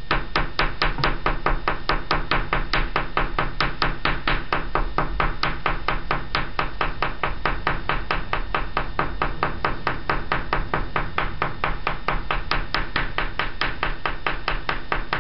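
An oil pastel stick tapped rapidly and repeatedly on paper at an angle, stippling dabs of colour: a fast, even run of light taps that goes on without a break.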